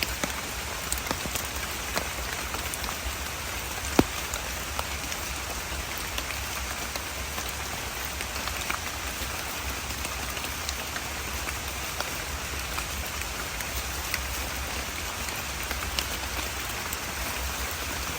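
Steady rain falling, with many separate drops ticking close by and one sharper tap about four seconds in.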